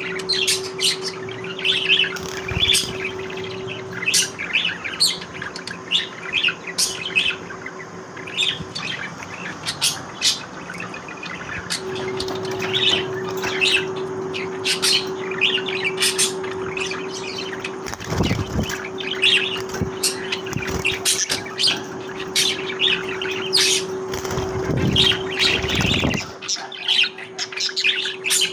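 A group of budgerigars chattering, with many quick chirps and warbles overlapping throughout. A steady low hum runs beneath them and drops out for a few seconds in the middle.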